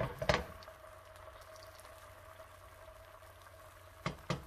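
Thin rice-flour batter for bánh cuốn bubbling and sizzling softly in a hot pan as it sets, over a faint steady hum. A few sharp knocks come at the start and two more near the end.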